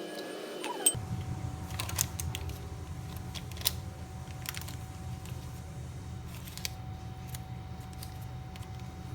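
Steady low room hum with a faint steady tone, and scattered light clicks and taps of objects being handled, the sharpest about one, two and nearly four seconds in.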